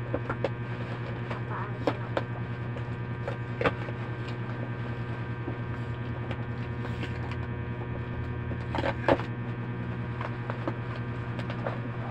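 Steady low electrical hum, with scattered clicks and crinkles of packaging being handled as wrapping is pulled from a cardboard box. A sharper click about nine seconds in is the loudest sound.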